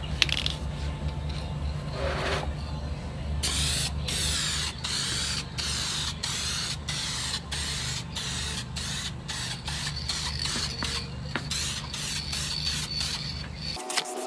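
Aerosol spray can of paint hissing in short passes, roughly two a second, with a brief pause about two seconds in: a light first coat going onto a steel outboard gas tank. A steady low hum runs underneath and stops just before the end.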